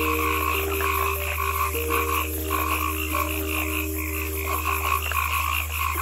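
A chorus of frogs croaking, with short calls repeating over and over, over a steady low hum.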